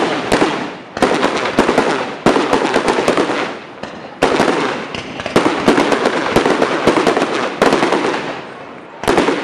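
Aerial fireworks display: a rapid series of sharp bangs from shells bursting, with dense crackling between them. The bangs ease briefly about four seconds in and again near the end.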